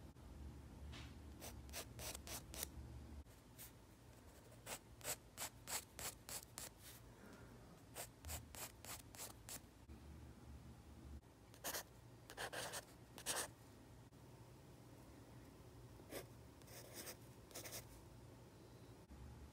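Pencil scratching on paper in short, quick strokes that come in clusters with pauses between, the loudest run of strokes a little past the middle.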